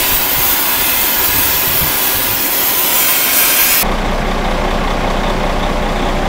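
A gas torch hissing steadily under the dump truck, then about four seconds in an abrupt cut to the truck's engine idling steadily.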